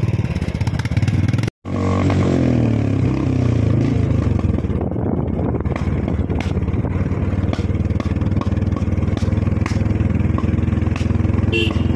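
Motorcycle engine running while riding along a road, its pitch shifting a couple of seconds in, with occasional clatter. The sound cuts out for an instant about a second and a half in.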